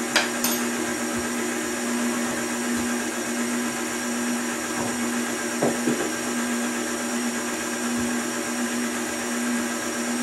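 KitchenAid Classic Plus stand mixer running steadily with a constant motor hum, its beater mixing cake batter in a stainless steel bowl, with a few light clicks.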